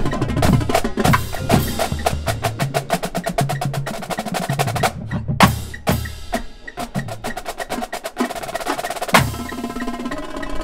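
Marching drumline of snare drums, tenor drums and tuned bass drums playing together: fast, dense stick strokes over bass drum notes that step in pitch. After a brief break about five seconds in comes a loud unison hit, and another about nine seconds in.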